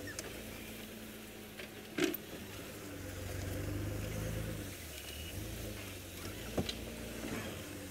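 Open safari vehicle's engine running at low revs as it crawls off-road through bush, swelling a little about three seconds in. Two sharp knocks, about two seconds in and again near the end.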